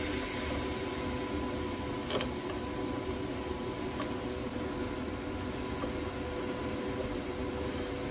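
TIG welding arc running steadily with a hiss and a faint steady whine, laying a fillet weld on unground steel strip with its surface left uncleaned.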